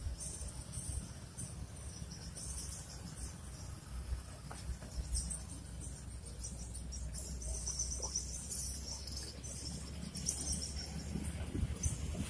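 Insects chirping in a high, uneven pulsing trill, over a steady low rumble.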